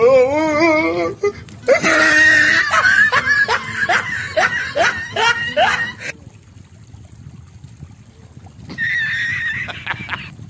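High-pitched laughing: a wavering cry, then a quick run of laughs lasting about four seconds, and a shorter burst near the end.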